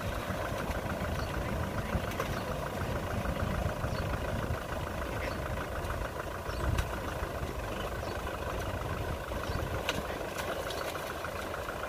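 Kubota M6040SU tractor's four-cylinder diesel engine running steadily at low revs, with an even firing beat.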